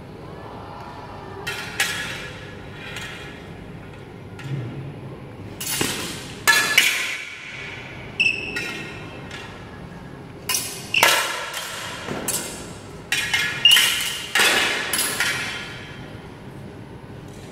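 Steel swords and bucklers clashing in sword-and-buckler sparring: sharp metallic clanks, some ringing on afterward, coming singly and in several quick flurries of exchanges, echoing in a large hall.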